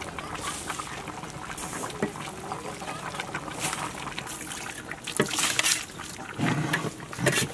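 Soaked basmati rice dropped by the ladleful from a perforated skimmer into a large pot of boiling mutton gravy, with bubbling, splashing and the clink of the ladle.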